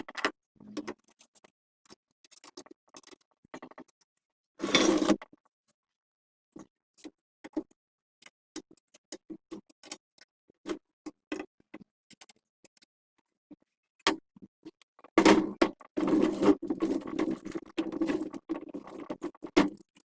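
Small parts and tools being handled: scattered light clicks and knocks, a short rasp about five seconds in, and a few seconds of continuous rubbing near the end.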